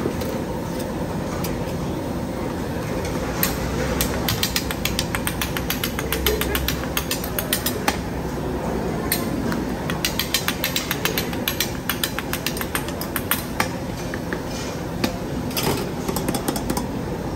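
Metal utensils clinking and scraping against a small aluminium pot as soup is stirred on a gas burner: rapid runs of light clicks starting a few seconds in, over a steady background hiss.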